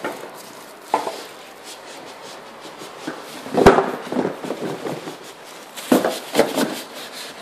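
Cardboard TV box and polystyrene foam packing being handled: a few knocks and thumps, the loudest about halfway through, and two quick ones near the end.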